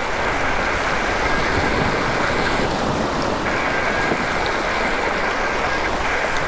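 Sea waves surging and washing over coastal rocks: a steady, dense rush of surf.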